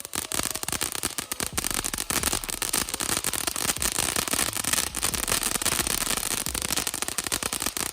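Ground fountain firework spraying with a steady hiss and dense, rapid crackling, which thickens about a second and a half in.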